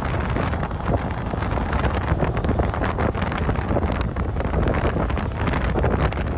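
Wind buffeting the microphone of a phone filming from a moving vehicle, a loud steady rush with rapid gusts, over low road noise.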